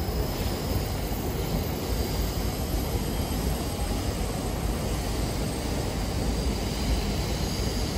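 Steady outdoor ambience of a busy shopping street, with an unbroken low rumble and no distinct events.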